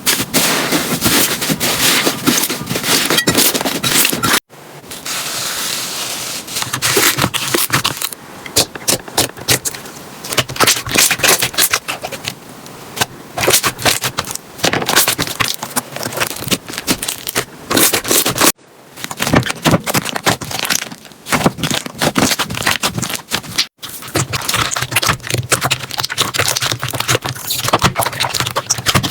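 Slime being squeezed, pressed and poked by hand, making dense crackling clicks and pops with some scraping. The sound breaks off suddenly three times, about 4 s, 18 s and 24 s in, as one slime clip cuts to the next.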